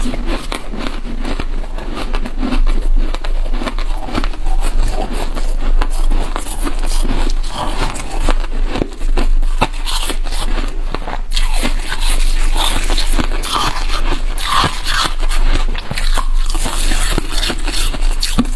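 Freezer frost being bitten and chewed: dense, continuous crunching and crackling.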